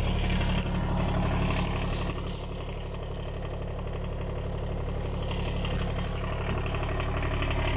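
Kubota BX25D sub-compact tractor's three-cylinder diesel idling steadily.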